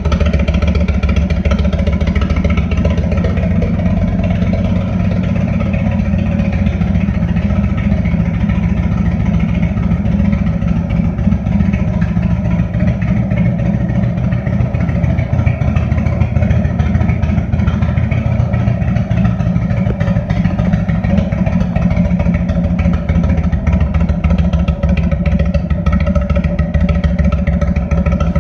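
2022 Indian Chief's Thunderstroke 111 V-twin running at a steady idle through shortened, fully gutted factory slip-on mufflers, a loud, open exhaust note. The engine is still cold, having been started only moments before.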